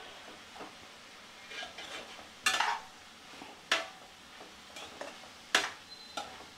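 Steel spatula stirring and scraping yardlong beans around a nonstick kadai as they stir-fry, over a faint sizzle. It clatters sharply against the pan four times in the second half.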